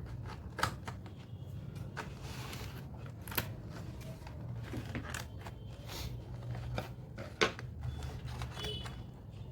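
A packaging box of tealight candles being opened: scattered clicks, snaps and scrapes of the packaging being handled, over a steady low hum.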